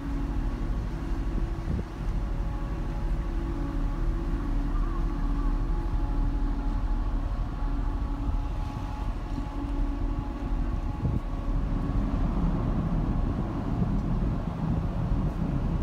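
Steady machinery hum of the berthed Shin Nihonkai Ferry Lavender, its running engines or generators giving a low rumble with a few held tones; the rumble grows a little rougher about twelve seconds in.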